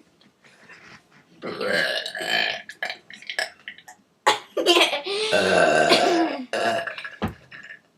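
Deliberate, forced burps: one about a second and a half in, then a longer, drawn-out burp from about halfway through to near the end.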